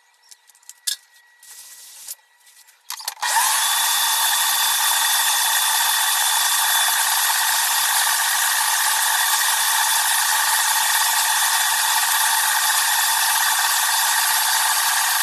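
A few light clicks and taps, then about three seconds in an Oster stand mixer switches on and runs at a steady, even whine, its balloon whisk beating egg whites to stiff peaks.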